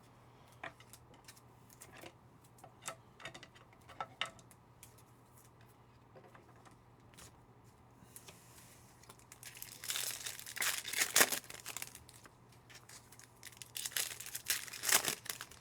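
Trading-card pack wrapper being torn open and crinkled by hand, in two louder bursts about ten and fourteen seconds in, after scattered light clicks.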